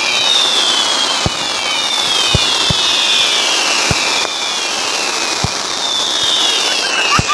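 Fireworks going off: a steady crackle with repeated falling whistles and short low bangs about a second apart.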